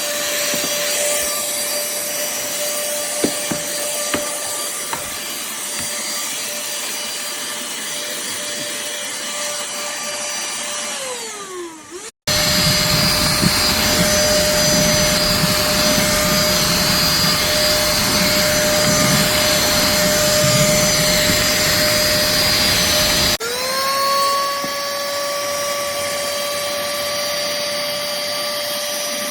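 Cordless handheld vacuum cleaner running with a steady motor whine over rushing air. About eleven seconds in its pitch falls as it winds down, then it runs again louder with more low rushing noise, and about twenty-three seconds in the whine slides up as the motor spins back to speed.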